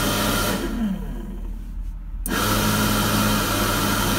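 Small 12-volt high-flow cooling fan blowing steadily. It cuts out about half a second in, its hum falling in pitch as it winds down, then comes back on suddenly with a click a little after two seconds in. A low engine hum runs underneath.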